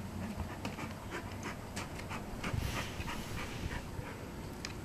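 A large dog panting close up, restless and uneasy, with short clicks and taps scattered through it.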